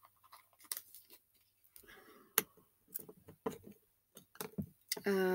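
Scattered light clicks and taps from small objects being handled on a table, with one sharper click about two seconds in. Right at the end a person starts humming a held note.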